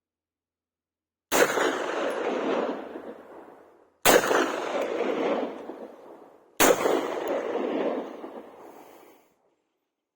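Three 9mm pistol shots from a Beretta 92FS, a few seconds apart. Each shot is sharp and is followed by a long echo that dies away over about two seconds.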